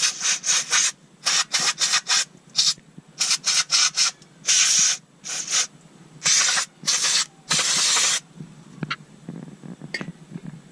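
Aerosol brake cleaner sprayed into a wheel hub's lug-bolt holes to flush out the threads. It comes as a run of short quick spurts, then several longer hissing sprays between about four and eight seconds in, and then it stops.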